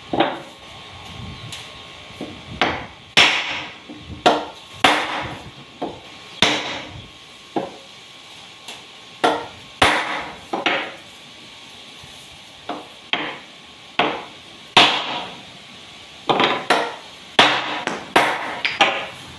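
Hammer striking a chisel into the wooden backrest of a bench: about two dozen sharp knocks at an uneven pace, with short pauses between runs of blows.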